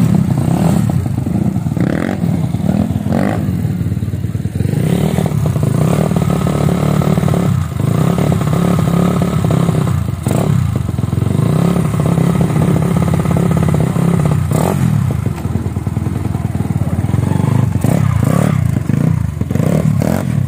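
Dirt bike engine running steadily close by, with a few short knocks and clatters along the way.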